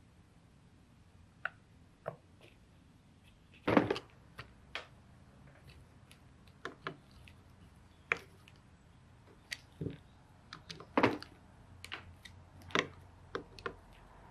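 Scattered light clicks and knocks of metal parts and a screwdriver on a Dellorto DHLA carburettor's aluminium body as the pump cover housing is fitted and screwed down. The loudest knocks come about four and eleven seconds in.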